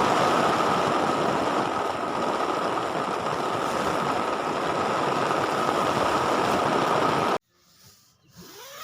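Heavy rain with storm wind, a steady loud rush of water noise that cuts off suddenly about seven seconds in.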